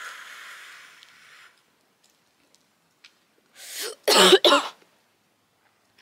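A long breathy exhale, then a short fit of harsh coughing about four seconds in, muffled into a coat sleeve: a smoker's cough after drawing on a glass pipe.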